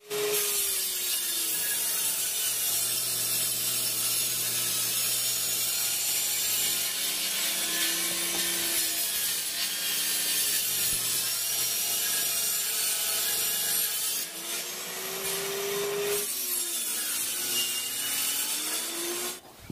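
Table saw running and ripping plywood. The blade's pitch sags as it bites into the board and climbs back several times, and the saw stops just before the end.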